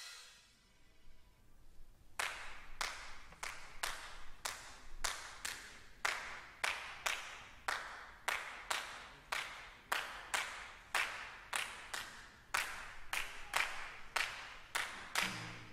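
Drumline percussionists clapping their hands in unison in a steady rhythm, about two to three crisp claps a second, starting about two seconds in. Near the end, low pitched tones join the claps.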